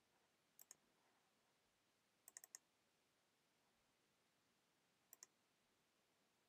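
Faint clicks of a computer pointing device, in quick groups: a double-click about half a second in, four fast clicks around two and a half seconds, and another double-click near five seconds. These are clicks opening a program, enough to launch it twice.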